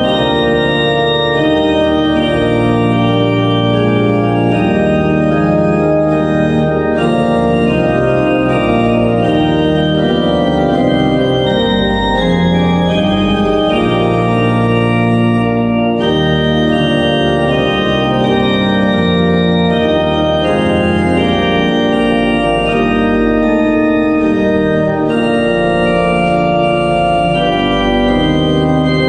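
Organ music: full held chords over a deep bass line, steady in loudness, the chords changing every second or two.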